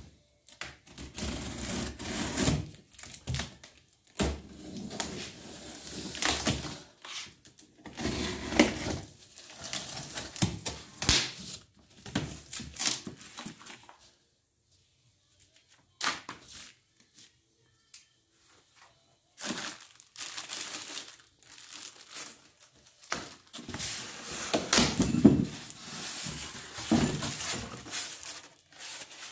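A cardboard box being opened and unpacked by hand: flaps pulled open, a paper manual and a foam packing insert rustling and scraping against the cardboard in irregular bursts, with a lull of a few seconds around the middle.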